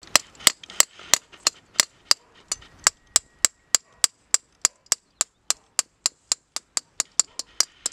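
A small hammer tapping on rock in a steady rhythm, about three sharp strikes a second.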